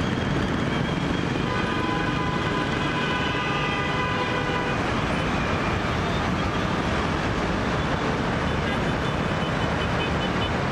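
Steady road traffic noise, with a vehicle horn held for about three seconds from about a second and a half in.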